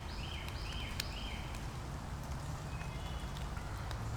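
A songbird singing a phrase of three quick notes, each stepping down in pitch, with fainter short notes later, over a low steady hum.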